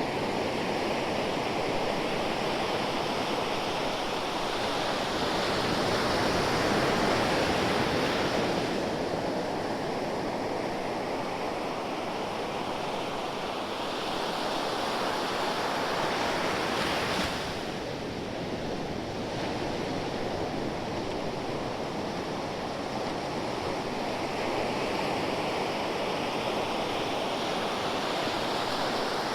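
Ocean waves breaking and washing on the shore in a continuous rush of surf that swells and ebbs slowly, loudest about seven seconds in and easing after a wave dies away around seventeen seconds in.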